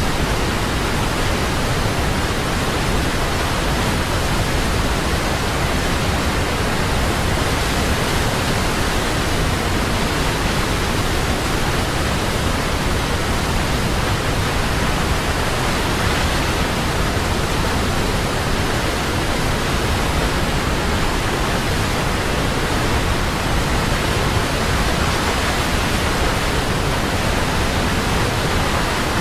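Large waterfall with water pouring down in a loud, steady rush and no breaks.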